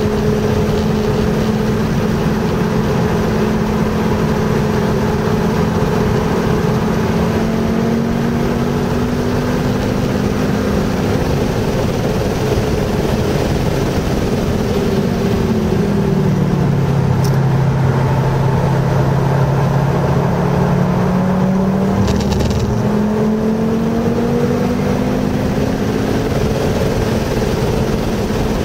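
Car engine and road noise heard from inside the cabin while driving at speed: the engine note climbs slowly, falls in pitch about halfway through, then climbs again near the end.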